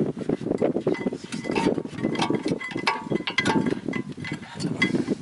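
Metal parts clinking and ringing as worn brake pads and their metal shims are handled and pulled from the caliper, with many sharp clicks and short rings.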